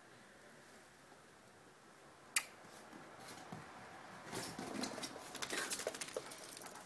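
Small clicks and rustling from dogs moving about and a handheld camera being carried. There is one sharp click about two seconds in, then a busy run of taps and rustles in the last two and a half seconds.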